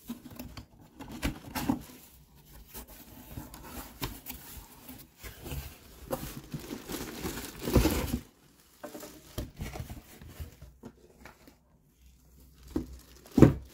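A cardboard box being opened and a full-size football helmet in a clear plastic bag slid out, with irregular crinkling of the plastic and rustling and scraping of the cardboard. There is a louder rustle about eight seconds in and a couple of sharp knocks near the end.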